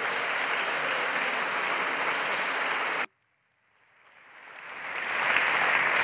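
Applause from a chamber full of members of parliament. About three seconds in it cuts off abruptly, then fades back in over the next two seconds to its full level.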